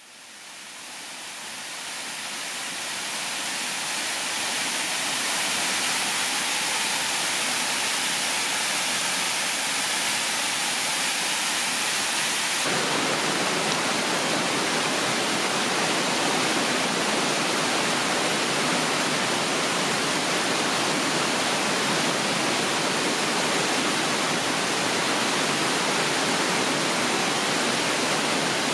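Water pouring over a dam's spillway into white water below: a steady rushing noise that fades in over the first few seconds and turns fuller and deeper about twelve seconds in.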